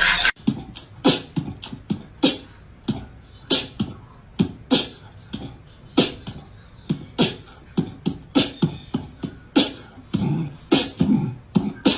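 A quick, irregular series of sharp percussive pops and clicks, about two or three a second, some with a low thump under them.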